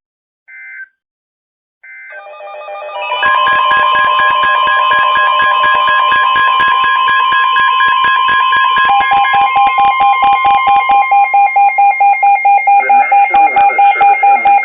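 NOAA Weather Radio emergency alert tones, loud, ahead of a tornado-warning message. Two short bursts of alert data come first. A layered alarm then follows: a steady tone, joined about halfway by a lower beep pulsing a little over three times a second, and the steady tone stops near the end.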